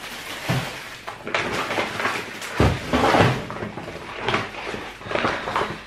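Kitchen wall-cabinet door being opened and things inside handled: a series of irregular knocks and rustles, with a heavier knock about two and a half seconds in.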